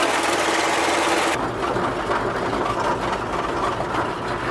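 1965 Chevrolet C10 pickup engine running steadily at idle with the hood up. About a second and a half in the sound changes abruptly to a lower, heavier engine sound as the truck drives off.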